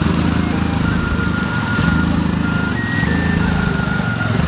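Quad bike (ATV) engines running as the machines splash through a shallow river, with background music over them.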